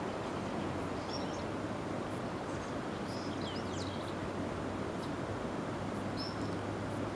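Small birds chirping briefly: one chirp about a second in, a quick cluster of chirps around three to four seconds in, and another near six seconds. Underneath is a steady rushing outdoor background noise with a low hum.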